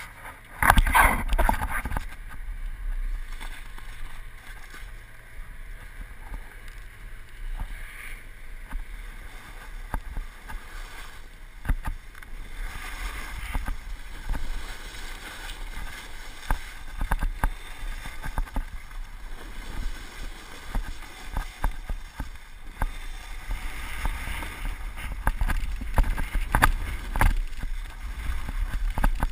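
Snowboard sliding and carving over packed snow, a scraping hiss that rises and falls through the turns, over a low wind rumble on the microphone. A loud burst of handling noise about a second in.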